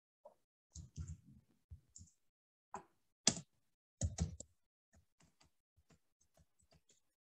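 Computer keyboard keys being pressed while text is edited: separate, irregular clicks. A few heavier presses come in the first half, then lighter taps follow at about three or four a second.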